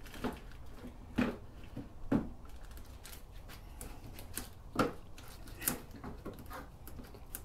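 Hand work on a plastic motorcycle windshield: a few sharp taps, about four, and many small irregular clicks and crinkles, from handling the shield and peeling its protective film.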